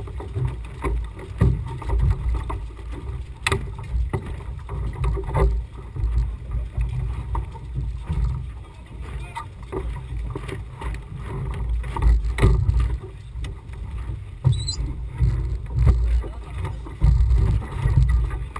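Wind buffeting the camera mounted on the deck of a Laser 2000 sailing dinghy makes a gusting low rumble, with sharp knocks and clicks from the boat scattered through, the loudest about three and a half seconds in. A brief high squeak comes about fourteen seconds in.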